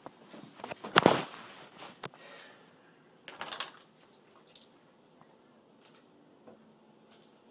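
A loud knock about a second in, with a few softer knocks and clicks after it, then quiet room tone.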